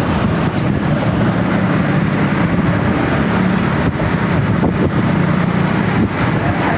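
Steady, loud low rumble of motor-vehicle noise, with a thin high whine that fades out about halfway through.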